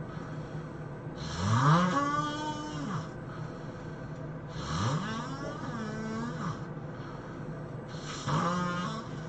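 Person snoring heavily: three long, voiced snores about three and a half seconds apart, each rising in pitch and then holding before it fades.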